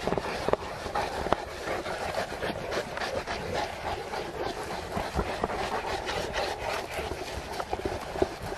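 A large pack of St. Bernard dogs out walking on a paved promenade: frequent irregular clicks and scuffs over a steady outdoor hubbub.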